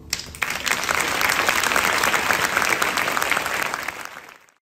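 A crowd applauding at the close of a song: many hands clapping together break out about half a second in. The applause holds steady, then fades and cuts off abruptly near the end.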